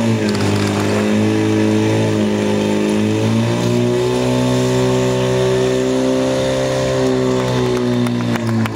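Portable fire-pump engine running flat out as it pumps water through the attack hoses to the nozzles. Its note sags just before the start, then holds steady with a slight rise after about three and a half seconds.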